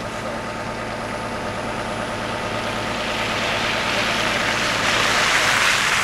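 A vehicle driving past close by through slush on a snowy road, its tyre hiss swelling to its loudest about five seconds in, over the steady low hum of an idling city bus engine.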